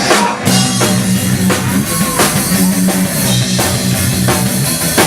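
Rock band playing an instrumental passage between sung lines: a drum kit keeping a steady beat over a pulsing bass line, with guitar.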